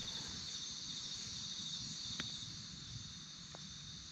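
Steady, high-pitched chorus of insects, a continuous buzzing drone, with two faint clicks partway through.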